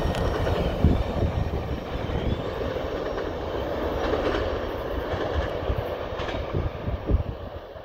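Freight train cars rolling away on steel rails: a low rumble of wheels with a few sharp clacks over the rail joints, fading as the train recedes.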